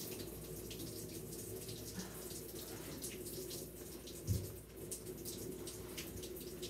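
Water running and dripping into a plastic bathing tub with a steady trickle. A single soft low thump comes a little past four seconds in.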